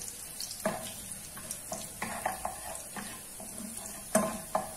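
Chopped garlic and ginger sizzling in hot oil in a frying pan while a spatula stirs them, scraping and knocking against the pan several times, with the loudest knock near the end.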